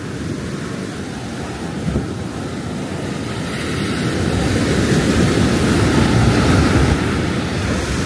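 Surf washing onto a sandy beach, with wind buffeting the microphone. The rush of the waves swells to its loudest about five to seven seconds in, then eases.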